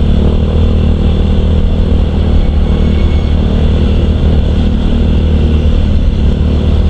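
Yamaha Mio i 125 scooter's single-cylinder engine running steadily as the scooter is ridden along the road.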